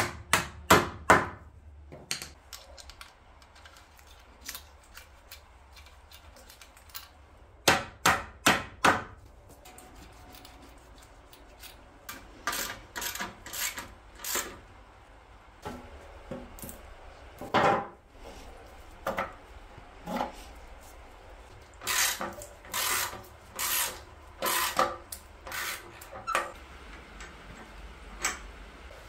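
A plastic-faced hammer tapping carriage-bolt heads down into the wooden slats of a cast-iron garden bench, in short bursts of sharp taps with pauses between. There are several quick taps at the start, four near eight seconds, and more groups later.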